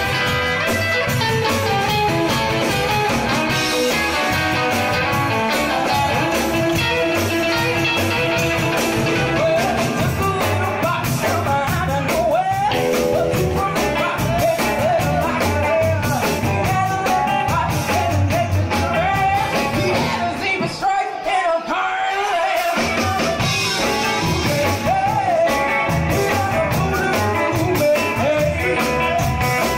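Background music: an upbeat rock-and-roll song with guitar and singing. The bass drops out for a moment about two-thirds of the way through.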